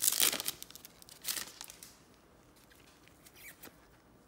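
Foil trading-card pack wrapper crinkling and tearing open, loudest at the start and again about a second later. This is followed by soft rustles and ticks as the cards are handled.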